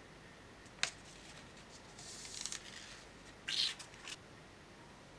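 Faint handling sounds from laying silver leaf: a light click about a second in, then soft rustles of the thin leaf and its paper about two seconds in and again about three and a half seconds in.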